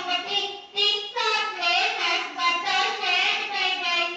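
A child's high-pitched voice through a handheld microphone, in a continuous run of words with a brief pause about half a second in.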